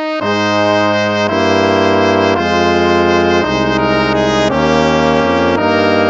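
Instrumental hymn played by brass, starting right at the beginning after a short silence, with held chords that change about once a second.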